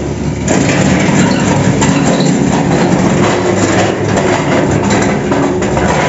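Rusty iron gate being moved, grinding and rumbling loudly and steadily as it travels.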